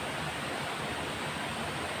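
Steady rushing of river water flowing over rocks, an even unbroken noise.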